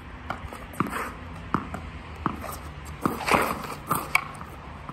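A tennis ball bouncing, a sharp tap every half second to a second, the loudest about three seconds in, over a steady hiss of rain.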